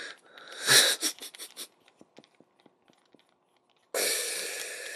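A loud breathy exhale a little under a second in, then faint small clicks of a precision screwdriver working the screws of a plastic toy figure, and a sudden steady hiss from about four seconds in.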